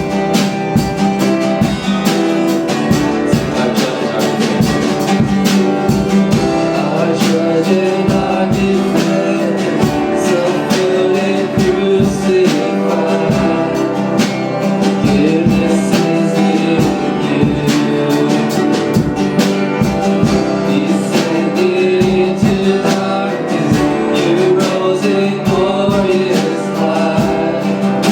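Live worship band music led by guitar, playing steadily.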